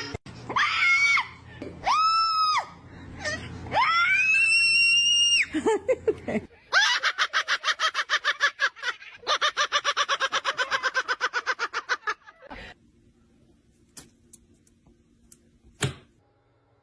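A parrot calling: three shrill whistled calls, the last held for more than a second, then a fast stuttering run of harsh notes lasting several seconds, followed by a few faint clicks.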